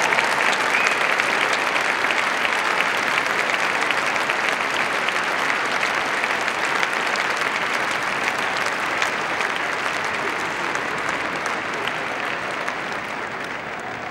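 Large arena crowd applauding, a dense even clatter of many hands that fades slowly toward the end.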